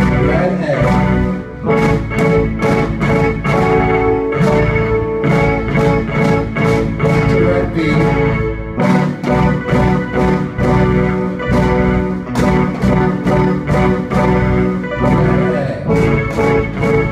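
Kids' rock band playing live: a drum kit keeping a steady beat under electric guitar and an organ-sounding keyboard.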